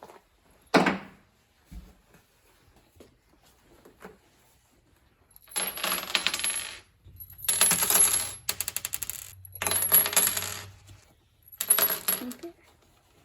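Coins dropped onto a hard surface: a sharp clack about a second in, then several stretches of metallic rattling and ringing as coins spin and settle, one ending in a quickening run of ticks.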